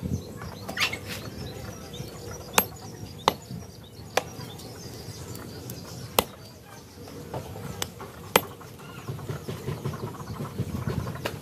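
Knife blade chopping chicken on a wooden chopping block: a handful of sharp, single chops at uneven intervals, a second or more apart.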